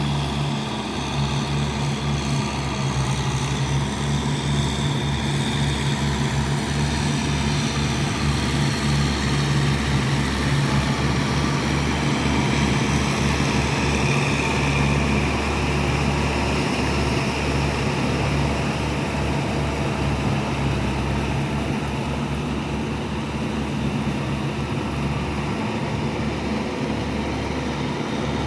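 Kubota farm tractor's diesel engine running steadily with a constant low drone while it works a rice paddy.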